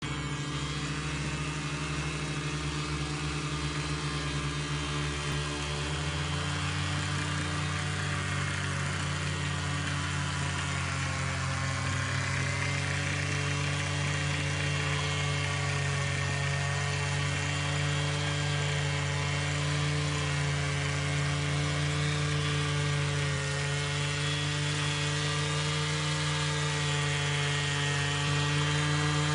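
Small engine of a three-row motorized rice-paddy weeder running steadily under load as it is pushed along the rows, picking up speed slightly about six seconds in.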